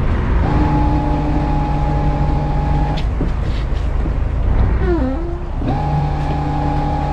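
Boat engines running slow during docking, a steady low rumble. Twice a flat, steady humming tone with overtones is held for about two seconds, once at the start and again about six seconds in.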